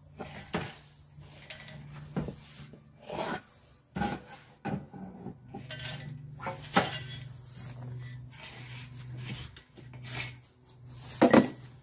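Street-lamp head being worked loose and lifted off the top of its pole: irregular scraping, rubbing and knocking of the fitting against the pole, with a louder knock near the end, over a steady low hum.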